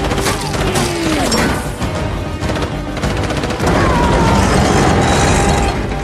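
Action-film sound mix: music over booms and crash-like impacts, getting louder a little before four seconds in.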